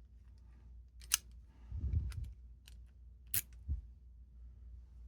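Padlock and metal keys being handled: a few sharp metallic clicks, with a dull low knock and rustle in between.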